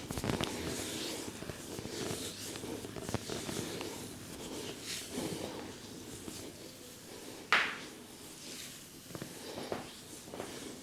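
Head massage: hands rubbing and working over hair and skin, giving an uneven rustling friction noise. A sharp click comes right at the start, and a single loud sharp smack about seven and a half seconds in.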